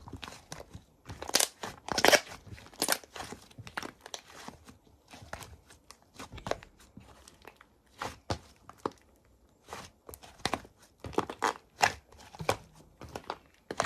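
Slime being squeezed and pressed by hand, giving irregular crunchy crackles and snaps, several a second in clusters.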